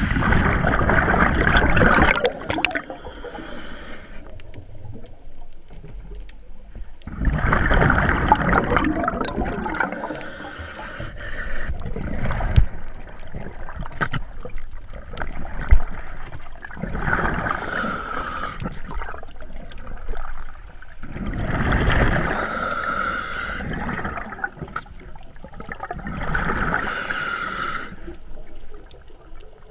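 Scuba diver breathing through a regulator underwater: five loud rushes of exhaled bubbles gurgling past, with quieter spells between the breaths.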